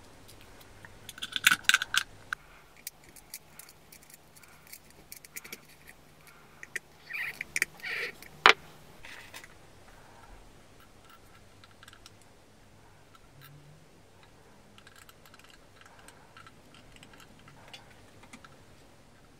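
Small clicks and taps of a clock movement being fitted by hand, its hex nut and hands put on the shaft. Clusters of clicks come about a second in and again around seven to eight seconds in, ending in one sharp click; after that only faint scattered clicks.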